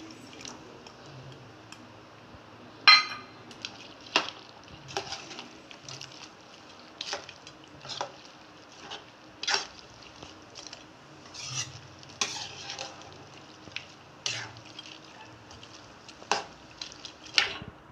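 Metal ladle stirring chunky chicken gravy in a pot, knocking and scraping against the pot about once a second, with the loudest ringing knock about three seconds in. A low steady sizzle of the cooking gravy runs underneath.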